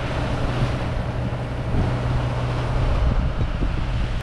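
Sailboat motoring through open sea: a steady engine drone under wind buffeting the microphone and water rushing past the hull. It cuts off abruptly at the end.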